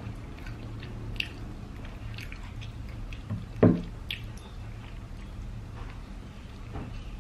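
Close-up eating of a cheeseburger: wet chewing with scattered mouth clicks, and one short, louder low mouth sound about three and a half seconds in.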